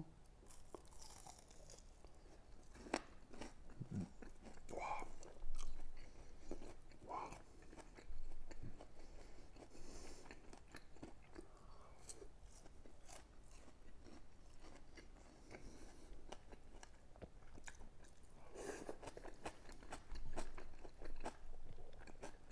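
A person biting into and chewing a thick breaded pork cutlet (tonkatsu), with irregular crunches from the crust.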